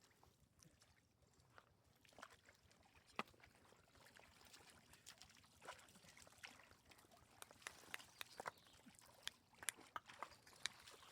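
Faint water sloshing and trickling, with scattered small splashes and clicks that come more often in the second half.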